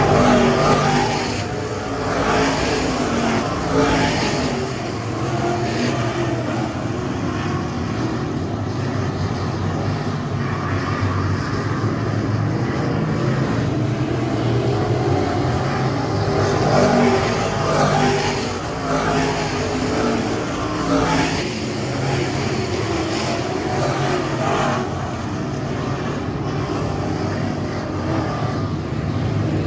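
A pack of dirt-track race cars running laps on a dirt oval, their engines running hard together and swelling louder several times as cars pass close by.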